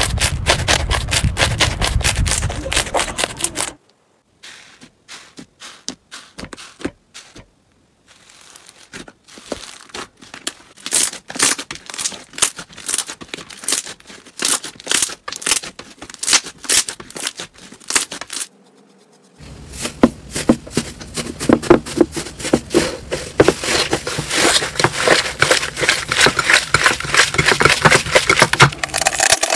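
Slime being squeezed, pressed and kneaded by hand, giving dense crackling and popping clicks as air pockets and foam beads burst. The crackle is quieter and sparser in the middle stretch and densest over the last ten seconds, as a crunchy slime is mashed.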